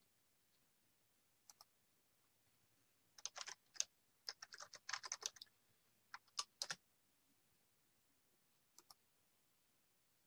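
Faint typing on a computer keyboard: quick runs of keystrokes with pauses between them, plus a few lone clicks near the start and near the end.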